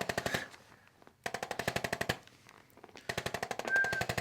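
Handheld chiropractic percussion instrument tapping rapidly on the glutes and SI-joint area, loosening tight muscle fibres. It comes in three runs of fast, even clicks with short pauses between them.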